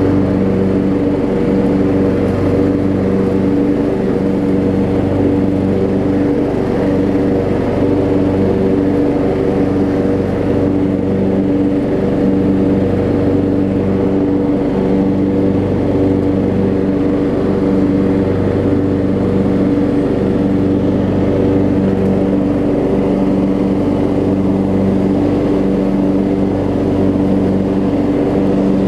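Craftsman riding mower's 15.5 hp single-cylinder Kohler Command engine running steadily as the tractor drives along, turning freely now that the deck belt is fitted correctly.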